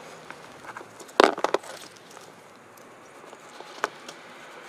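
Metal derailleur parts being handled and wiped with a rag: a quick cluster of knocks and clatters about a second in, then a single sharp click near the end.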